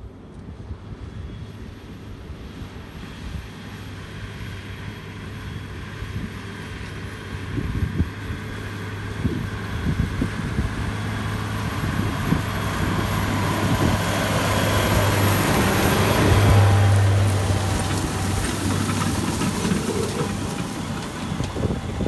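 A heavy farm machine's engine running with a steady low hum and rumble. It grows gradually louder to a peak about two-thirds of the way through, then eases off slightly.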